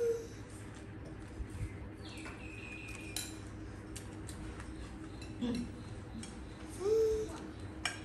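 Chopsticks clicking and scraping against plates of fried noodles while eating, over a steady low hum. A short rising voice-like sound comes at the start and another about seven seconds in.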